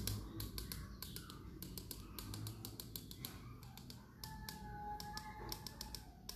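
Faint, quick, irregular taps and clicks of a paintbrush being dabbed against a biscuit (cold-porcelain) peach, working cornstarch into the still-damp paint to give it a velvety skin.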